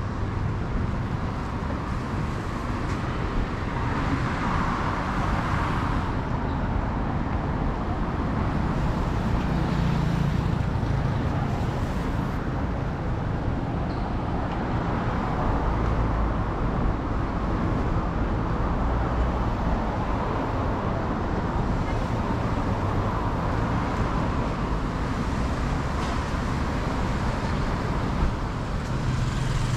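Steady city road traffic: motor vehicles passing, their engines and tyres making a continuous rumble that swells and fades as vehicles go by.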